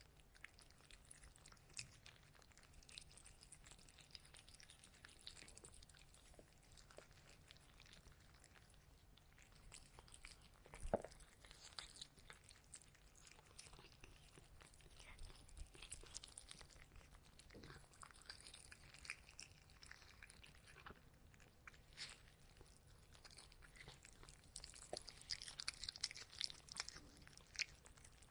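A cat chewing and crunching dry kibble from a plastic bowl: a faint, irregular run of small crunches and clicks, denser near the end, with one louder knock about eleven seconds in.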